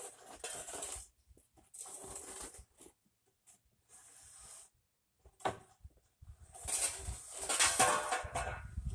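A concrete paver block scraped through loose bedding sand in a few separate pushes, spreading and leveling the sand base. The last scrape, near the end, is the longest and loudest.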